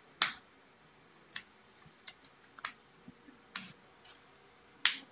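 Sharp plastic clicks and taps as a removable battery is fitted into the back of a Huawei Honor Holly smartphone: about seven irregular clicks, the loudest right at the start.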